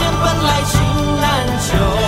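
Background music: a melody over a steady low beat.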